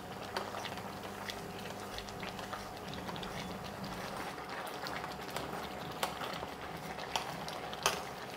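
Grated carrots simmering in milk in a steel pot: a quiet bubbling with many small pops, and a few sharper clicks in the second half.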